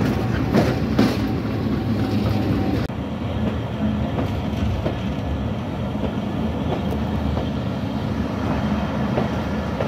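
Train running along the track: a steady rumble with a low hum, and two sharp wheel clicks about a second in. The sound turns a little duller about three seconds in.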